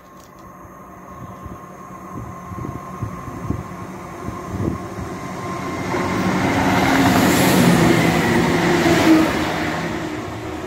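ScotRail Class 170 Turbostar diesel multiple unit running through the station without stopping. Its diesel engines and wheels on the rails grow louder as it approaches, are loudest about seven to nine seconds in, and then begin to fade as it draws away.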